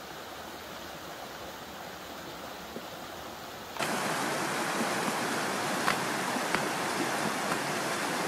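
Mountain stream rushing over rocks, a steady water noise that becomes louder and brighter about four seconds in, with a few light clicks over it.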